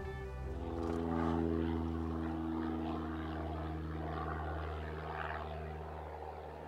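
An engine running with a steady low drone, slowly growing quieter.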